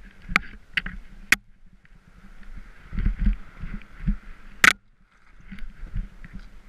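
Skis sliding through powder snow, a hiss that comes and goes over a low rumble of wind and bumping on the helmet camera. A few sharp clicks and knocks come from skis or branches striking, the loudest about four and a half seconds in.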